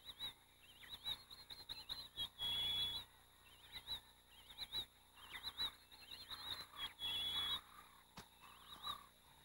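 Faint, repeated high-pitched warbling trills from a wild animal calling, broken by two short steady whistled notes.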